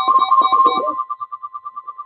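Electronic ringtone-like trill: one beep repeating about ten times a second, with a few lower synth-like notes over it in the first second, then quieter after about a second.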